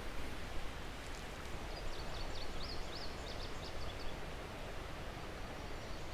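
Steady rush of flowing creek water, with a small bird singing a quick series of high notes about two seconds in.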